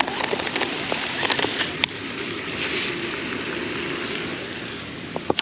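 Steady outdoor rushing noise with a quick run of light clicks a little over a second in and one sharp tick near two seconds in.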